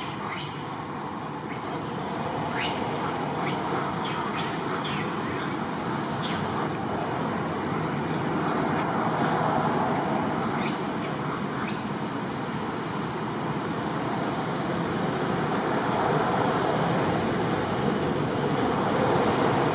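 Steady rushing outdoor background noise, like distant traffic or wind. Over it come short, high, thin whistled calls that sweep up and then down, about a dozen of them in the first twelve seconds, before they stop.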